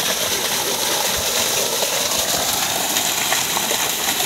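Steady gush of water pouring from a solar irrigation pump's outlet pipe and splashing down into the field.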